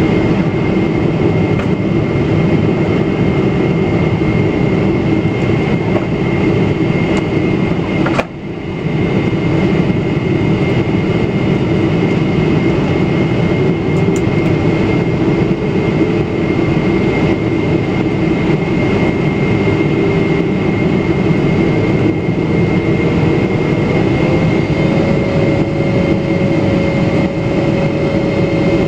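Cabin noise of a Boeing 777-300ER on approach, heard from a window seat beside its GE90 engine: a loud, steady rush of engine and airflow noise with a thin, steady whine. The sound drops out briefly about eight seconds in, and a hum rises slightly in pitch in the second half.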